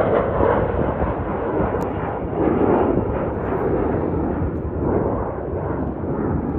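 Embraer E175 regional jet's twin turbofan engines roaring at takeoff power as it climbs out, a steady jet roar that swells and eases every second or two.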